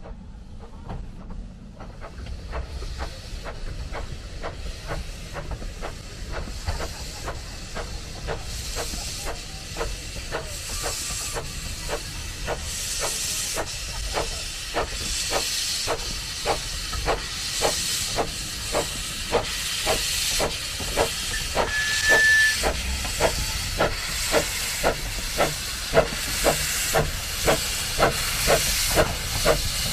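1897 Baldwin narrow-gauge steam locomotive working a train past, its exhaust chuffing in an even beat with steady steam hiss. The beat grows louder as the engine draws near, at about two chuffs a second near the end. A brief high note sounds about two-thirds of the way through.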